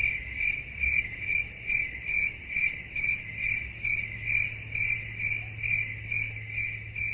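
Cricket chirping: a high, steady trill pulsing in even chirps about two to three times a second.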